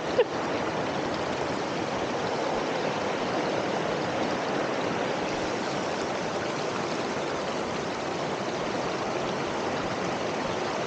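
Steady rush of water from a waterfall and its fast-flowing stream, with one brief click just after the start.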